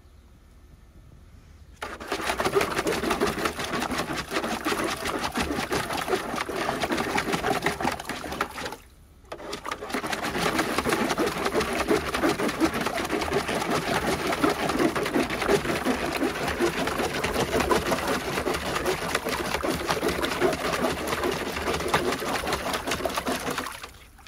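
Jack Russell terrier digging rapidly with his front paws in the shallow water of a hard plastic paddling pool: fast, continuous splashing and churning. It starts about two seconds in, pauses briefly around nine seconds, then keeps going until just before the end.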